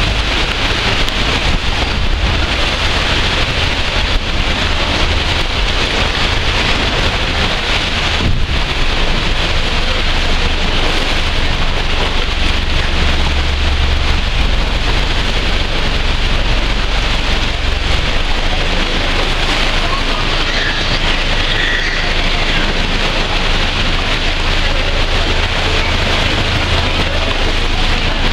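A small tour boat's engine running steadily at low speed, under a dense, even hiss of sea water splashing and churning along the hull.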